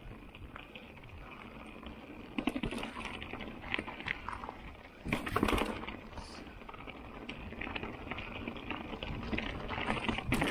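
Mountain bike rolling down rocky singletrack: tyres crunching over loose stones, with quick clicks and rattles of the bike, and a louder clatter about five seconds in.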